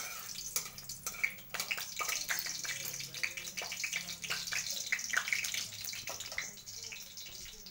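Dried red chillies frying in hot mustard oil in a steel kadai: a steady sizzle with many small crackles and pops.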